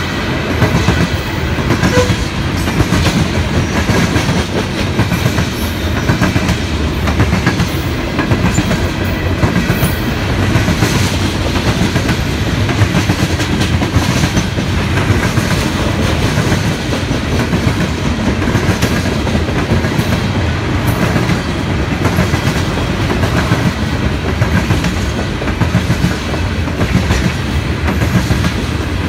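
Loaded coal train's hopper cars rolling past close by: steady wheel-on-rail noise with a rapid run of clicks as the wheels cross rail joints.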